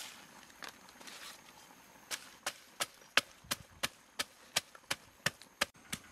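Wooden pestle pounding garlic and chillies in a wooden mortar: sharp, even knocks about three a second, starting about two seconds in. At the very start, a brief rustle as a chopped ingredient is dropped into the mortar.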